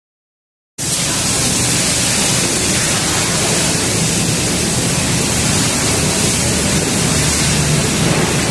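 Steady, even hiss of noise that cuts in abruptly about a second in and holds at a loud, unchanging level.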